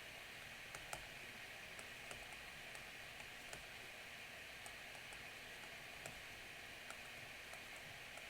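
Faint steady hiss with scattered light clicks, a little under one a second, the strongest about a second in.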